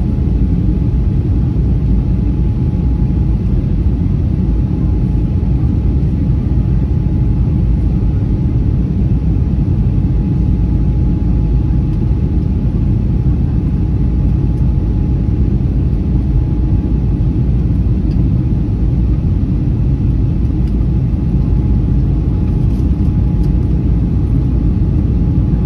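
Steady in-flight cabin noise of an Airbus A320-232 heard inside the cabin: a deep, even rumble from its IAE V2500 engines and the airflow, with a thin steady tone above it.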